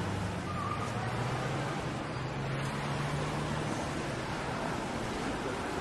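City street traffic noise: a steady wash of passing vehicles, with a low engine hum through the first half that fades out.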